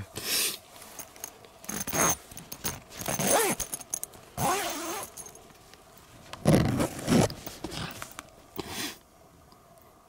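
Tent door zipper being pulled open in several short pulls, with the tent fabric crinkling and rustling as a hand drags it aside.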